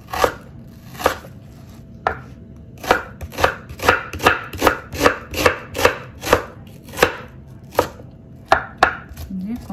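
Kitchen knife slicing an onion on a wooden cutting board: a run of sharp chopping strokes, slow at first, then about two to three a second, slowing again near the end.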